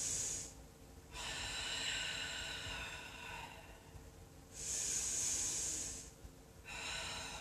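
A woman breathing audibly and slowly while holding downward-facing dog in yoga. There is a sharp hissing breath at the start, then a long breath out, another hissing breath about four and a half seconds in, and a shorter one near the end.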